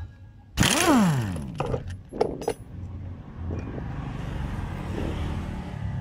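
Impact wrench firing a short burst on the 24 mm nut of a scooter's CVT clutch and driven pulley, its pitch falling as it spins down once the nut breaks loose. Metal clinks follow as the loosened nut and socket are handled, then a steady hiss.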